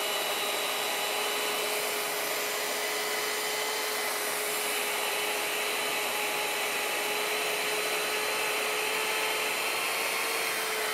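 Worm-drive circular saw fitted with a Prazi Beam Cutter chainsaw attachment, its chain cutting steadily through a timber beam: an even motor whine over the noise of the chain chewing through wood.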